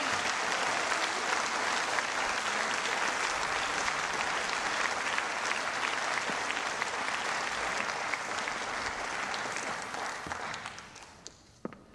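Theatre audience applauding: dense, steady clapping that dies away about ten seconds in, leaving a few scattered claps.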